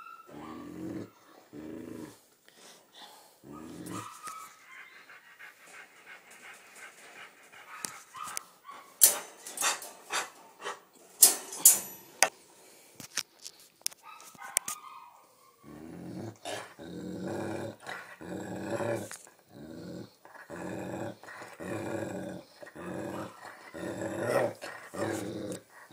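English springer spaniel in a wire crate growling and grumbling in a run of short low calls, about one a second, which the owner reads as him being angry or 'talking'. Sharp clicks and knocks come in the middle.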